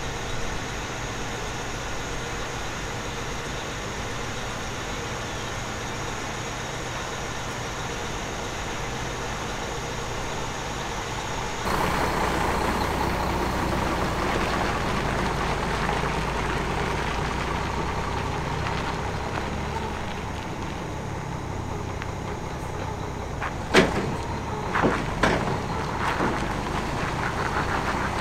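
Heavy lorry engines running steadily, getting louder and fuller about twelve seconds in, with a few sharp knocks near the end.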